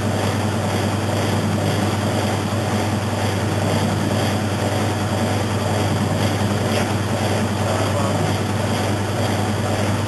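Maytag Atlantis top-load washing machine running with its tub spinning, a steady motor hum and whir.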